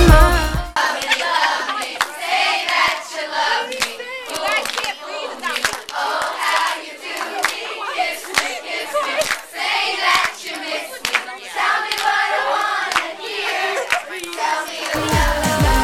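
Cinema audience of young fans screaming and clapping: many high, wavering shrieks over a dense spatter of handclaps.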